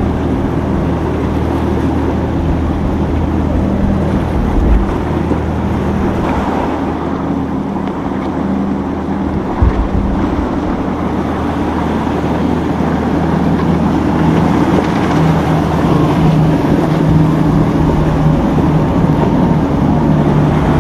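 Motorboat engines running steadily, with a low hum under the rush of wind and water. Wind buffets the microphone twice.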